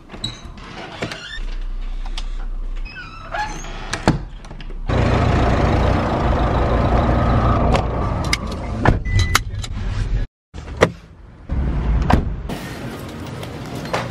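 Car running, heard from inside the cabin as a steady noise, in short clips cut together, with scattered clicks and knocks from handling doors and fittings.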